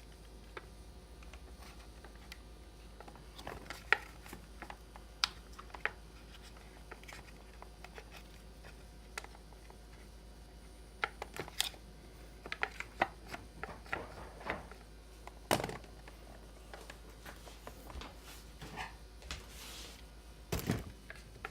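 Scattered light clicks and taps of hands working on a chainsaw's wiring and plastic parts while unrouting wires, with a louder knock near the end.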